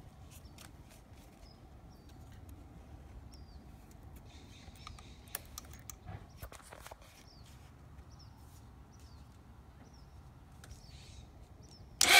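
Birds chirping over a quiet outdoor background, with a few sharp clicks. Right at the very end a Honda motorcycle's engine starts abruptly and loudly.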